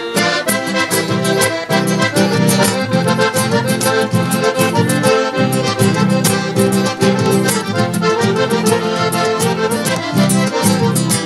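Instrumental break of a Southern Brazilian gaúcho song. An accordion plays a quick melody over a steady rhythmic band backing, with no singing.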